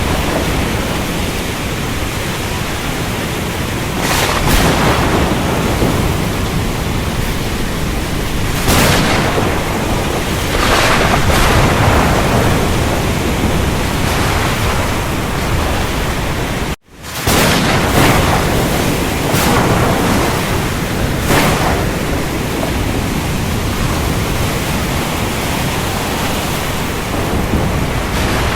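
Thunderstorm recording: steady heavy rain hiss with several sharp thunder cracks and rumbles. Two-thirds of the way through, the sound cuts out for a split second and then resumes.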